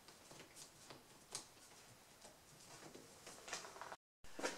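Faint scattered clicks and scrapes of hands handling an ATV carburetor and its hoses while freeing it from the engine. The sound drops out briefly about four seconds in, followed by a few louder clicks.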